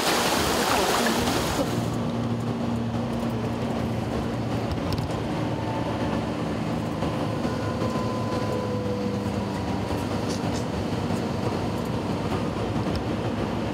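Rushing water and wind from a boat moving on a river for about the first two seconds. Then a sudden cut to the steady drone of a road vehicle's engine and tyres while it drives.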